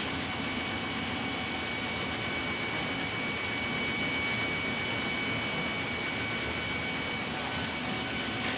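IBM card keypunch machines running as they are typed on: a steady mechanical whir with a high, steady whine and a fine, fast rattle.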